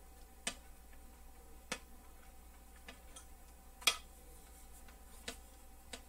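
A handful of sharp clicks and taps from metal parts inside a reel-to-reel deck's chassis as a switch board and motor are fitted by hand, irregularly spaced, the loudest about four seconds in.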